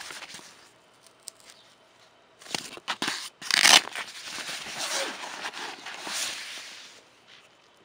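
Lowepro Classified 200 AW nylon camera bag being handled and turned over: fabric rustling and scraping in bursts, loudest a little under four seconds in, with a few short clicks and knocks from its fittings.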